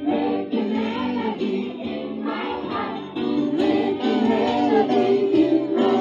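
Music with a group of voices singing together to a steady beat.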